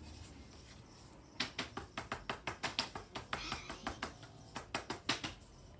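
Quick series of light taps, about four or five a second, starting about a second and a half in and stopping near the end: a colouring tool dotting stars onto paper.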